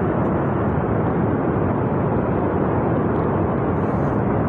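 Loud, steady rushing rumble of a flash-flood torrent of water and debris surging down a mountain river valley after a glacier burst.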